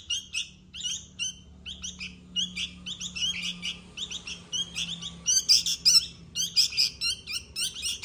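Sooty-headed bulbul fledglings giving rapid, high-pitched begging chirps, several birds overlapping, loudest a little past the middle: hungry chicks calling to be fed.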